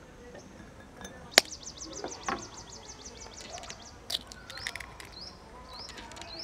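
A sharp tap about a second and a half in, an egg being cracked on a glass bowl, with a smaller crack as the shell is pulled open a few seconds later. Behind it a small bird sings a fast trill of high chirps, then single chirps about twice a second.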